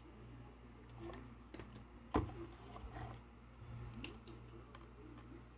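Quiet handling of a digital multimeter and its test leads: faint rustles and light ticks, with one sharp click about two seconds in, over a steady low hum.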